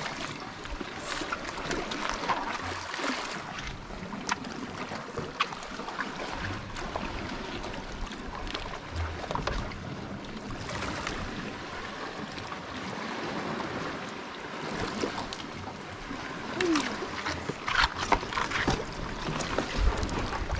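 Sea washing against a rocky shore, mixed with wind on the microphone, with a few short sharp clicks and knocks, most of them near the end.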